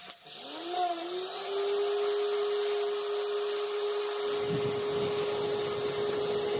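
A small electric power tool's motor spinning up to speed, its pitch rising over the first second or so. It then runs at a steady high speed, with a thin high whine over it.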